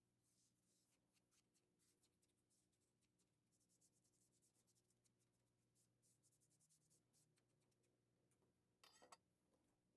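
Near silence, with faint quick rubbing strokes of a sponge working oil into a wooden tool handle, and a brief louder rub near the end.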